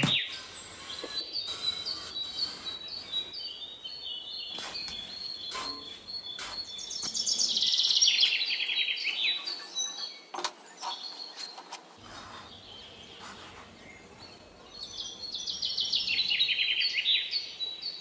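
Small birds chirping repeatedly, with two louder rapid descending trills, one about halfway through and one near the end. Faint scrapes and taps come from a small metal trowel digging into sand.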